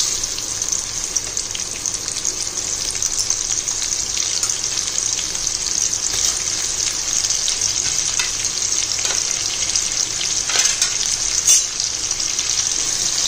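Sliced onions frying in hot oil in a kadhai, a steady sizzle with scattered crackles and one sharper pop near the end. The onions have only just gone into the oil.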